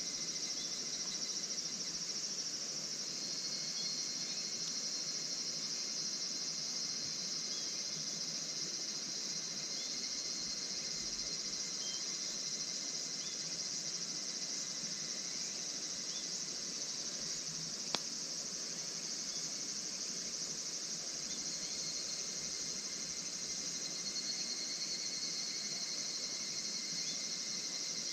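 Steady chorus of crickets and other insects: a constant high trill with a couple of steady tones. There is one sharp crack about two-thirds of the way through.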